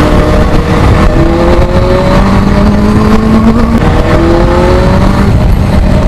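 Benelli 600i's inline-four engine pulling on the road, its pitch climbing slowly and then dropping back about four seconds in before rising again.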